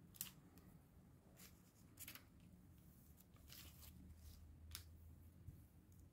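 Near silence, with a few faint rustles and light crackles of a clear plastic sleeve being handled and pressed flat on a tabletop.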